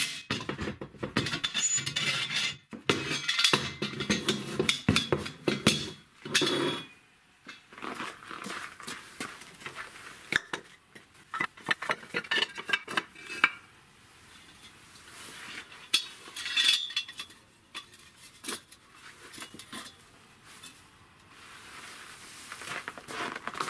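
Milwaukee cordless impact driver driving a screw into a steel square tube, in bursts over the first seven seconds or so. Then a run of sharp clinks and knocks as red clay bricks are set down against each other and gripped in a steel square-tube brick clamp.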